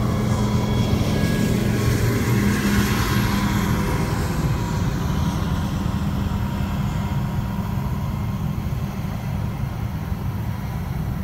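Steady vehicle and road noise with a low hum, with a whooshing sound that falls in pitch over the first several seconds.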